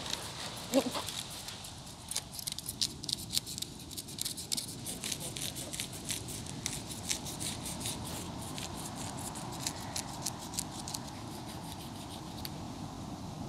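Knife working over a raw fish as it is cleaned for curry: quick, irregular crisp scraping clicks that stop about a second before the end.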